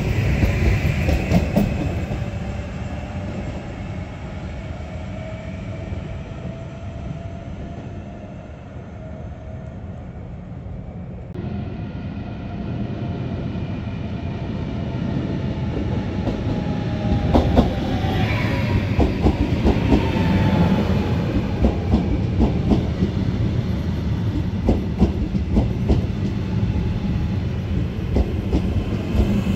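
Hitachi Rock (ETR521) double-deck electric multiple unit pulling out, its rumble fading away. Then a second one runs in and slows, with a whine falling in pitch and wheels clicking over rail joints.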